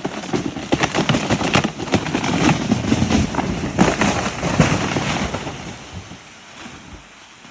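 A large tree falling: a dense run of sharp cracks and snaps of breaking wood and branches over a rushing noise, dying away over the last two seconds or so.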